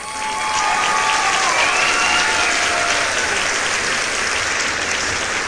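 Crowd clapping and cheering loudly, starting suddenly, with a few cheering cries heard over the clapping in the first few seconds.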